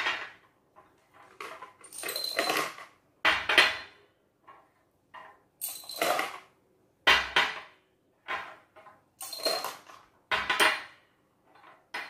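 Small glass jars clinking against each other and knocking down on a table as they are picked up, set down and shuffled, with small pieces tipped from one jar into another. The knocks come irregularly, a dozen or so, several with a brief glassy ring.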